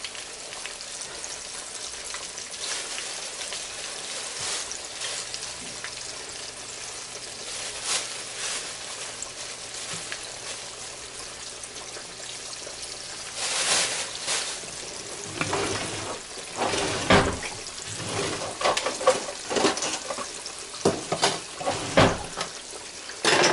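Floured chicken thighs frying in hot oil in a cast-iron skillet: a steady sizzle with crackles and pops. About halfway through it gets louder and busier as more pieces go into the oil.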